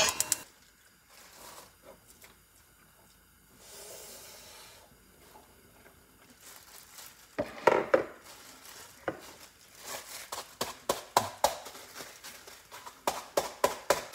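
Disposable plastic gloves crinkling as a rice ball is squeezed and shaped by hand, starting about halfway through. Near the end come a run of short taps and clicks.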